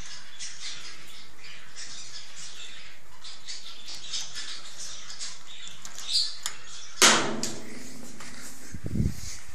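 White squirrel nibbling a crunchy puffed snack held in its paws: a run of quick, faint, crisp ticks. About seven seconds in there is one loud sharp knock that rings briefly, followed near the end by low handling bumps as the camera is moved.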